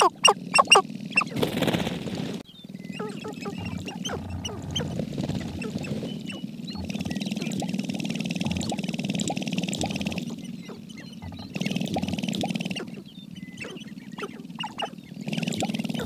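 Sharp-tailed grouse displaying on their lek: a low steady rattling drone of the dancing males' stamping feet and tail feathers, with many short calls over it. A quick run of sharp calls comes in the first second, and a brief rush of noise follows about two seconds in.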